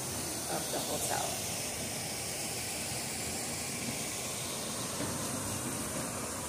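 Steady hissing background noise, even and without rhythm, with a faint brief sound about a second in.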